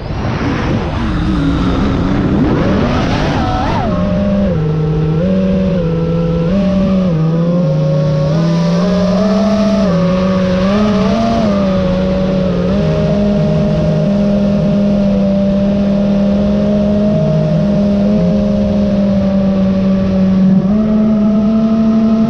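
FPV quadcopter's brushless motors and propellers whining, the pitch swooping up and down with throttle in the first few seconds, then holding steady with small shifts and a step up near the end.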